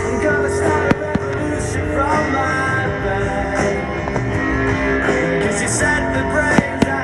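Rock music with electric guitar played loud over a fireworks display's sound system, cut through by a few sharp firework bangs about a second in and twice near the end.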